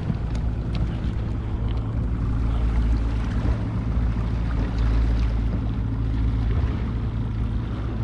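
Evinrude 90 outboard motor running steadily at slow trolling speed, a continuous low drone.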